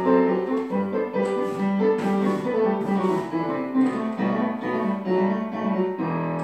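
Solo piano music accompanying a ballet barre exercise: a steady tune of separate notes that comes to rest on a held chord near the end.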